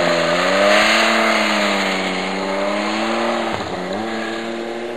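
Rotax snowmobile engine running hard under throttle, its pitch swelling and easing as the rider carves. About three and a half seconds in the revs drop sharply, then climb again.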